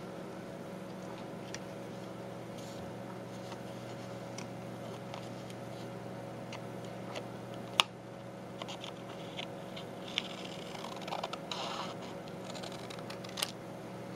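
Scissors cutting thick paper paint sample cards: scattered snips and scratchy rustles of stiff paper, with the sharpest snip about eight seconds in and a busier run of cutting a little later. A steady low hum lies underneath.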